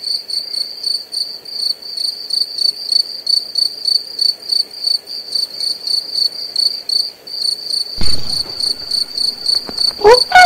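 Cricket chirping: a high, rapidly pulsing trill. A soft hiss joins about eight seconds in, and short high gliding notes start near the end.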